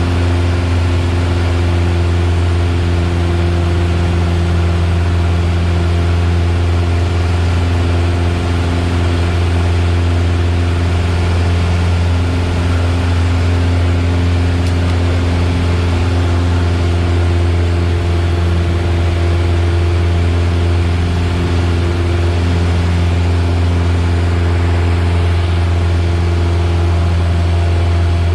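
Piper Warrior's four-cylinder Lycoming engine and propeller droning steadily, heard inside the small plane's cabin: a deep, even hum with a noisy wash over it and no change in pitch.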